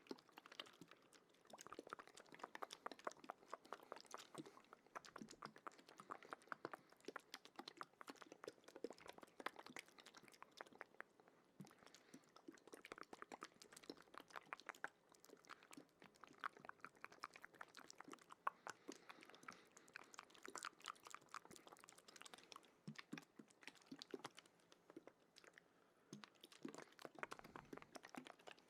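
Quiet close-miked ASMR mouth sounds: a dense, irregular run of soft wet clicks and smacks.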